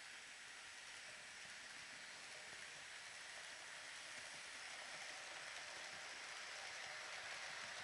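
Roco model passenger train rolling past on its track: a faint, steady rushing hiss of wheels and motor that grows slowly louder.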